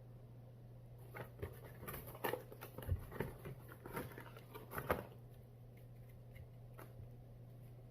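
Handling noise from unboxing a cell-phone gimbal: a flurry of clicks, taps and rustles for about four seconds, then a single click near the end, over a steady low hum.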